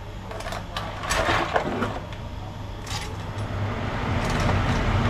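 Metal kitchen tongs clicking and live mud crabs' shells knocking as the crabs are lifted from a plastic basin into a cooking pot: a few sharp clinks and a clatter about a second in, over a steady low hum. A hissing noise swells near the end.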